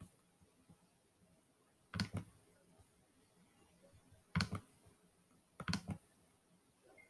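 Faint clicking on a computer's mouse or touchpad: single clicks about two and four and a half seconds in, then a quick double click near the end, while the slideshow is exited and the screen recorder is stopped.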